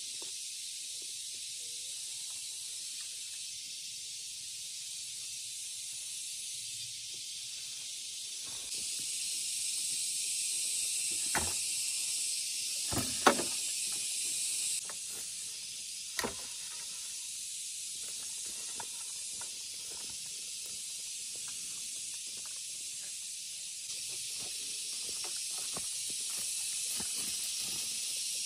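A steady high hiss that grows louder for several seconds in the middle and again near the end, with a few sharp knocks near the middle.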